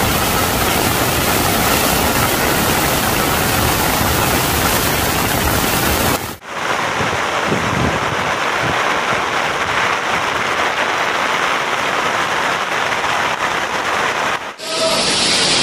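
Heavy rain and rushing floodwater: a loud, steady noise with no distinct events. It cuts off abruptly about six seconds in and resumes as the rush of a fast torrent of muddy floodwater, duller in the highs, then changes abruptly again near the end.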